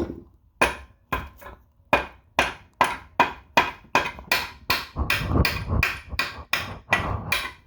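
Hammer blows in a steady series, about two or three a second, each with a short metallic ring, driving a shaft through a 1960 Ford three-speed transmission.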